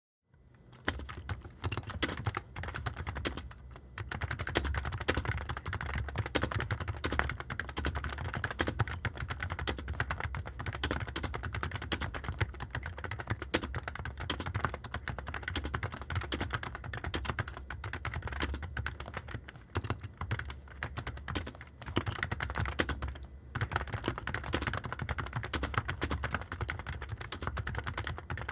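Computer keyboard typing: a fast, irregular run of key clicks that starts about half a second in and pauses briefly twice.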